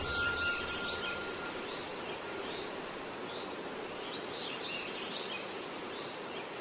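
Steady, even hiss of car cabin noise while driving, with a ringing chime tone fading out in the first second or so.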